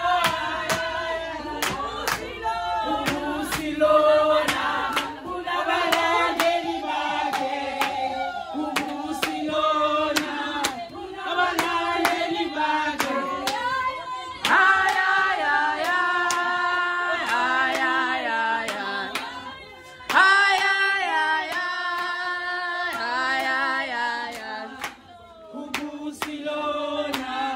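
A group of women singing together and clapping their hands in a steady rhythm.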